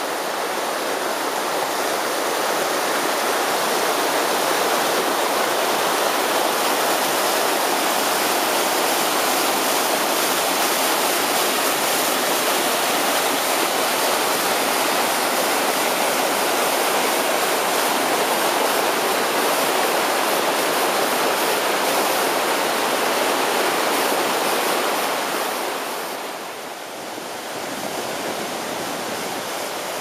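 Mountain river white water and waterfall pouring over rocks: a loud, steady rush of water. It dips briefly about 26 seconds in and comes back a little quieter.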